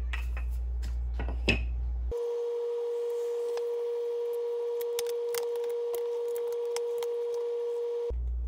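Small clicks and taps of a wooden rolling pin and a plastic cookie cutter handled on a granite countertop. They sit over a steady hum, which about two seconds in gives way to a steady higher tone lasting about six seconds.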